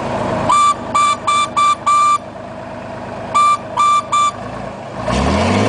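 Horn of a 1962 Mack H-67 truck honking in short toots, five in quick succession and then three more after a pause, over the engine idling. About five seconds in the engine revs up.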